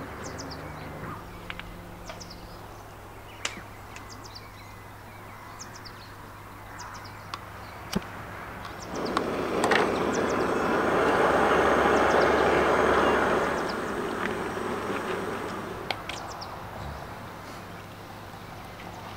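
Hot water poured from a Jetboil cooking pot into a cup, a rushing splash lasting about five seconds from around nine seconds in. Light clicks and knocks of metal camping cups and the stove being handled come before and after it.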